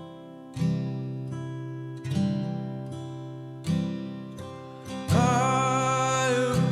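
Background music: a slow acoustic guitar song, with chords struck about every second and a half and left to ring out. A singing voice comes in about five seconds in.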